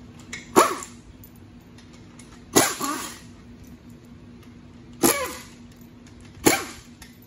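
Air impact wrench fired in four short bursts, each a hiss with a falling whine as it spins down, as it loosens the bolts on the rear housing of a GM 4L65E automatic transmission.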